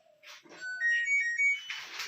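Washing machine's electronic end-of-cycle melody: a short tune of clear beeping notes, signalling that the wash is finished.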